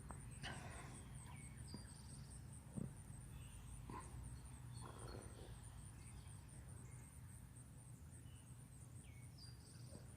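Faint outdoor ambience: insects trill steadily in a high, evenly pulsing chorus, with a few short, faint bird chirps scattered through it and a soft knock near three seconds in.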